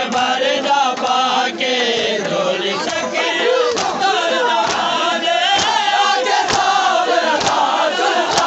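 A crowd of men chanting a mourning lament together, with matam: open hands striking bare chests in unison. The slaps fall at a steady beat of about one a second from roughly halfway in.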